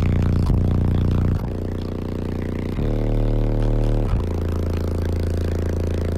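Two 18-inch Sundown ZV6 subwoofers on Taramps Bass 8k amplifiers playing loud, deep sustained bass notes that change pitch every second or so, heard from inside the vehicle. The vehicle's interior trim rattles and buzzes along with the bass.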